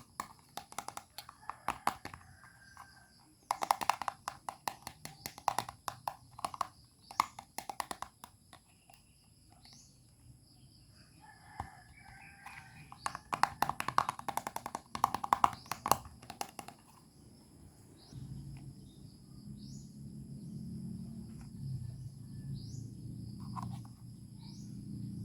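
Small plastic toy pieces and packaging being handled, clicking and tapping in quick irregular runs that stop after about 17 seconds. A low hum then sets in and grows louder toward the end.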